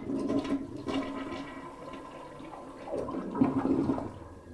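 American-Standard toilet flushing: water rushes into the bowl, eases, swells again about three seconds in with the bowl draining, then fades near the end. A test flush after fitting a new flapper.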